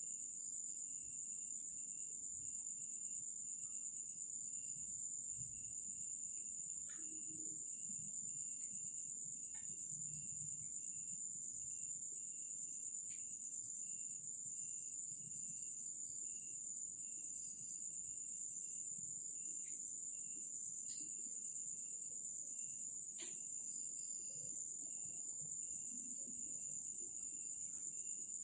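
Night insects, crickets, trilling steadily: one continuous high trill, with a second insect chirping in an even pulse about twice a second. A few faint clicks come through.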